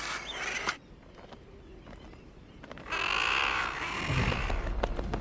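Guillemot calling: one harsh, drawn-out call about three seconds in, after a busy clamour of seabird calls at the start and a quieter stretch. A low rumble comes in near the end.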